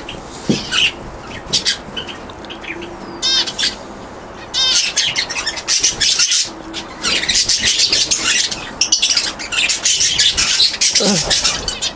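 Mixed flock of small aviary birds (finches, canaries and budgies) chirping and calling. Sparse calls at first, then a dense, busy chatter from about four and a half seconds in.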